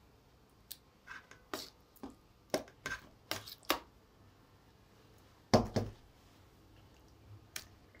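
Metal tongs and utensils clicking and knocking against a stainless steel bowl and plate while chicken pieces are worked into thick batter, in short scattered taps with one louder, deeper knock about halfway through.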